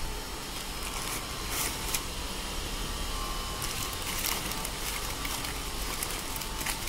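Brown plastic parts wrapping crinkling and rustling as hands pull it open, in irregular crackles over a low steady background hum.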